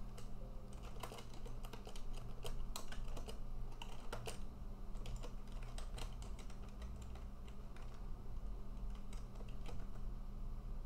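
Typing on a computer keyboard: a quick, irregular run of key clicks as a command is entered, thinning out after about six seconds.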